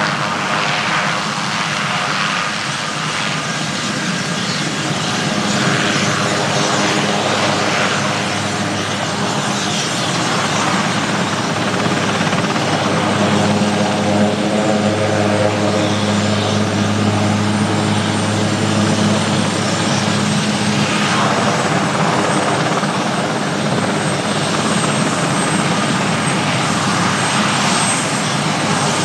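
Military helicopter's turbine engines and rotor running, a steady loud drone over a low hum that grows a little louder partway through.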